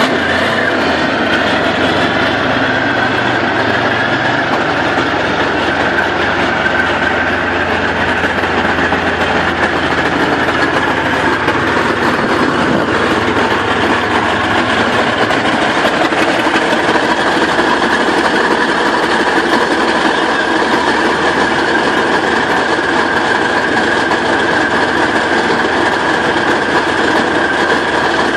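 Soviet T-55 tank's V12 diesel engine idling steadily just after a cold start, its deepest rumble fading about halfway through.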